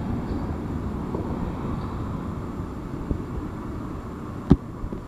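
Slow Union Pacific freight train rolling past: a steady low rumble of steel wheels on rail with scattered clanks, and one sharp knock about four and a half seconds in.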